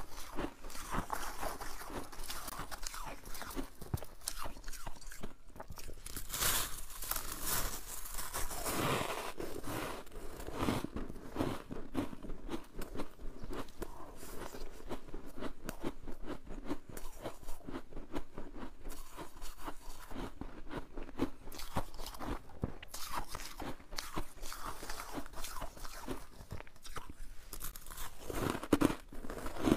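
Freezer frost crunching as it is bitten and chewed close to the microphone, a continuous irregular run of crisp crunches.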